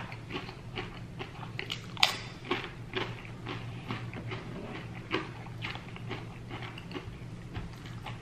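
Close-miked chewing of a crunchy tortilla chip: irregular wet crunches about twice a second, the loudest about two seconds in. A steady low hum runs underneath.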